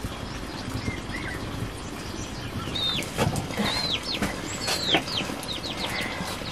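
Chickens clucking and squawking: several short, high calls that rise and fall, bunched in the second half, with a few sharp cracks among them.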